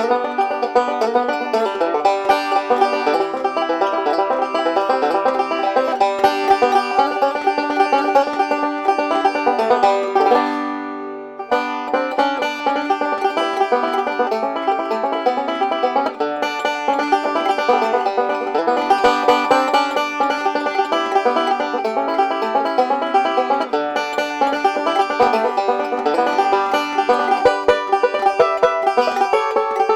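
Ome North Star resonator banjo, with a solid three-ply maple tone ring instead of a bell brass one, played solo with quick picked notes. About ten seconds in a chord is left to ring and fade, then the picking starts again.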